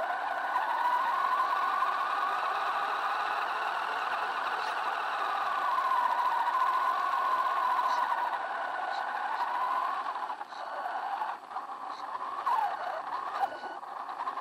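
Electric motor and gearbox of a WLtoys 10428 RC truck whining as it drives over dirt, the pitch rising and falling with the throttle over a steady higher tone. From about two-thirds of the way in the whine cuts in and out in short bursts, with a few knocks.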